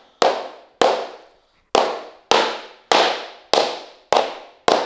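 Rubber mallet striking click-lock laminate flooring planks, eight sharp knocks about every half second, each with a short ringing tail, tapping the planks to seat their joints.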